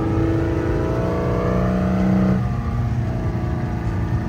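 An engine running and revving: its note climbs slowly, then drops suddenly a little past halfway.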